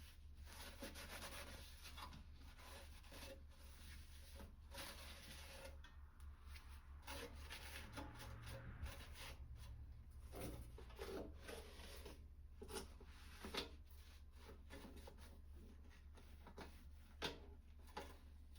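Faint irregular rubbing and scrubbing of a rag wiping degreaser off a metal toolbox, with a few light knocks.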